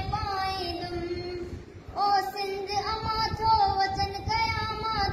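A boy singing solo and unaccompanied in Sindhi, holding long notes with a short break for breath about two seconds in.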